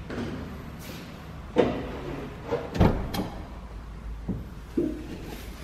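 A few scattered knocks and thuds inside a car's cabin, the loudest about a second and a half in and around three seconds in, as someone moves about among the seats and dashboard.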